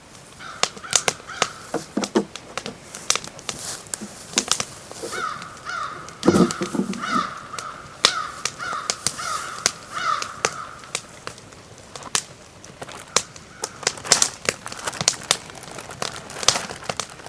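Small stick fire crackling and snapping steadily, with a louder snap about six seconds in. A bird calls in a run of about ten evenly spaced calls, two a second, from about five to eleven seconds in.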